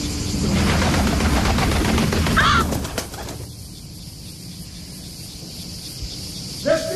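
A raven's wings flapping loudly as it flies in and lands on a perch, with a single call about two and a half seconds in. Another short call comes near the end.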